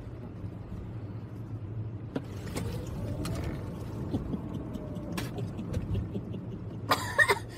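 Steady low road and tyre hum inside a moving car's cabin, with a few light clicks and rustles. Near the end comes a short, loud vocal outburst from a passenger.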